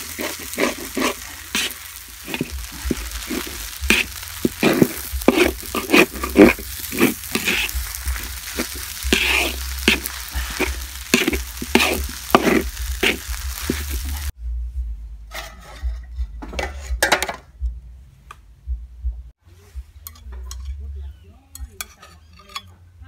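Soy-sauce noodles with kale and pork sizzling in a large wok while a metal spatula scrapes and tosses them, about two strokes a second. After about fourteen seconds the sizzling cuts off suddenly, leaving a few light clinks of a spoon and fork against ceramic plates.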